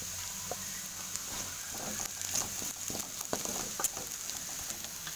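Chopped onions sizzling in hot oil in a kadai while a steel spoon stirs them, with irregular clicks and scrapes of the spoon against the pan.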